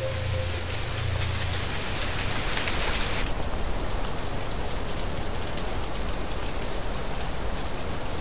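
Steady rain falling, an even hiss that eases slightly about three seconds in.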